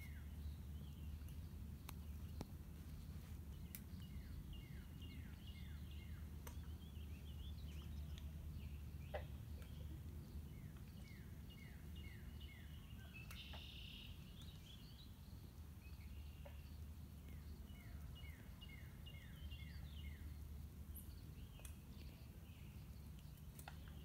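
A songbird singing faintly, a phrase of five or six quick falling notes repeated three times, over a steady low background rumble.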